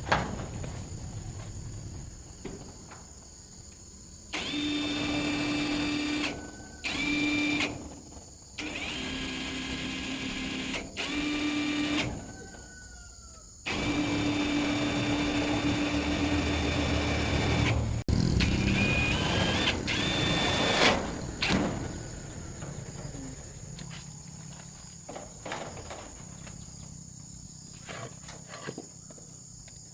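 A small electric power-tool motor running in repeated bursts with a steady whine, some bursts under a second and some several seconds long, its pitch dipping slightly during one burst. A sharp knock comes right at the start.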